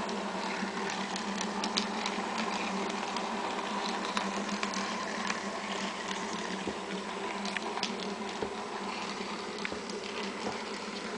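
A small electric model train running steadily around its track, its motor giving a continuous buzzing hum, with scattered light clicks from the running gear and track.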